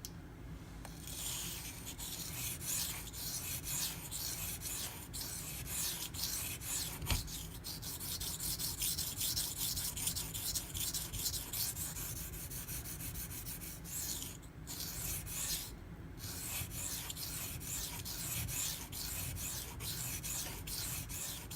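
Steel knife blade (Benchmade Mini Griptilian, M390) stroked back and forth on a waterstone by hand, a quick, even run of scraping strokes with two short pauses near the end. The edge is being ground down to remove chips in it.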